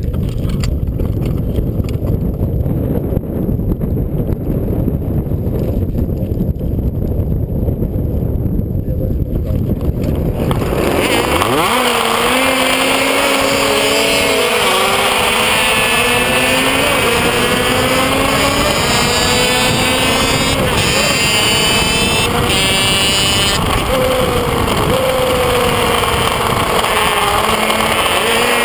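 A grid of two-stroke racing motorcycles rumbling as they wait for the start, then about eleven seconds in the onboard Kreidler Van Veen's engine revs hard as the pack gets away, its high engine note climbing and dropping repeatedly through the gears.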